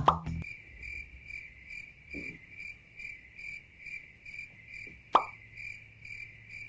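Cricket-chirp sound effect: a steady high chirp repeating about two or three times a second, the comic 'crickets' cue for an awkward silence. About five seconds in, a single sharp pop.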